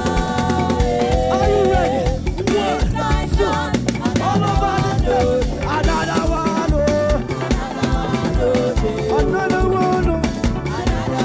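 Live praise band music with a steady drum beat under a stepping melody line, loud and even throughout.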